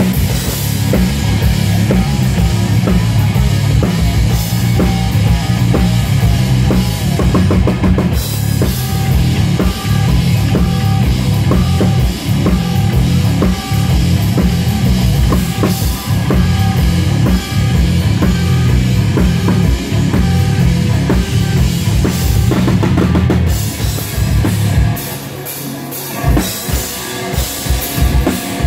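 Rock band playing loud through a live PA during a sound check: drum kit with heavy kick drum over bass and guitar. About 25 seconds in the full playing stops, leaving a few separate drum hits and short stabs.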